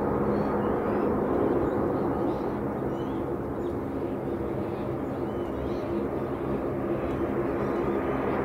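Airbus A380's four jet engines at takeoff thrust as the airliner climbs out: a steady, loud engine noise with low droning tones, easing slightly in the middle and swelling again near the end.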